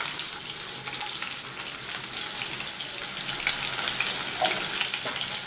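Sliced onions frying in hot oil in a kadai: a steady sizzling hiss dotted with small crackles.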